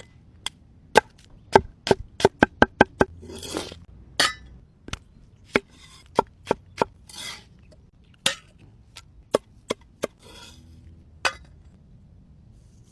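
Knife chopping on a wooden cutting board: about twenty sharp chops at an uneven pace, with a quick run of five or so about two seconds in, and a few short scraping sounds between them.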